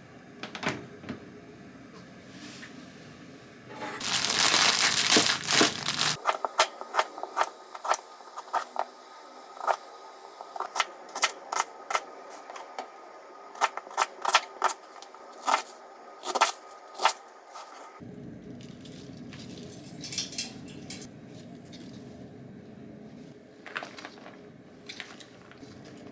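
Close handling sounds: a burst of crinkling and rustling about four seconds in, then a long run of sharp, irregular clicks and taps, thinning out near the end.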